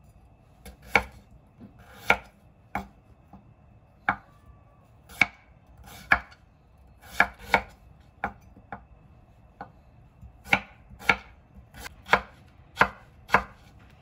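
Kitchen knife cutting a carrot into strips on a bamboo cutting board: about fifteen sharp knocks of the blade meeting the board, unevenly spaced at roughly one a second.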